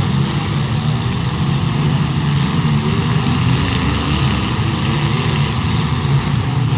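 Engines of several compact demolition derby cars running and revving together, a loud, steady rumble.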